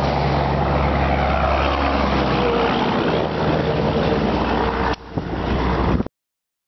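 Steady motor-vehicle engine and road noise: a low engine hum under a broad rushing sound. It dips briefly about five seconds in and then cuts off suddenly about a second later.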